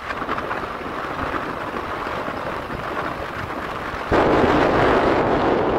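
Wind rushing over the microphone with the rumble of a moving vehicle on the road. It turns abruptly louder about four seconds in.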